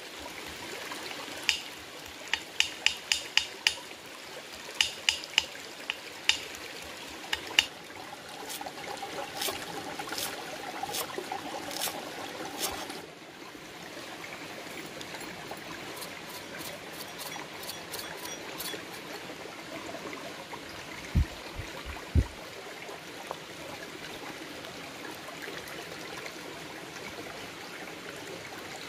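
A small forest stream trickling steadily, with a quick run of sharp knife taps over the first several seconds and two dull thumps a little past the middle.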